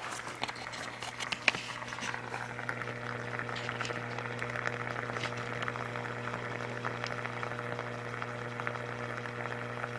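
Tap water boiling inside the submerged electron gun of a CRT as mains current passes through it: a steady low electrical hum under a crackling, fizzing sizzle of bubbles. A few sharper clicks come in the first couple of seconds.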